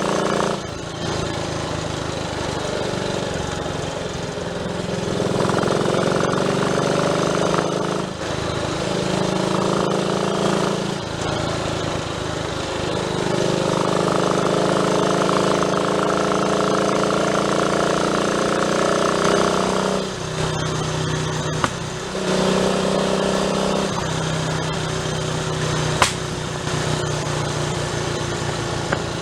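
Triumph Tiger Cub's small single-cylinder four-stroke engine running under way on a test ride after its misfire was traced to the distributor. The engine note shifts up and down in steps every few seconds as throttle and gears change, with a couple of sharp clicks near the end.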